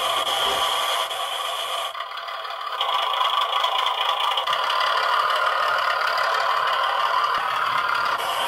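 G scale model diesel locomotive running with a steady mechanical whir and rattle as its wheels slip on a grade under too heavy a load, the sound dipping briefly about two seconds in as it stops, then carrying on as it backs away.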